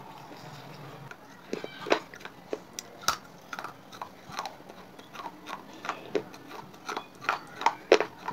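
Wet clay chips, broken pieces of clay pot, being bitten and chewed: a run of sharp, irregular crunches that starts about a second and a half in, with the loudest crunch near the end.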